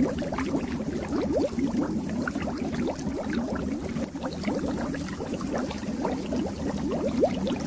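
Fish tank water bubbling steadily, a dense stream of small bubbles making quick little rising plips.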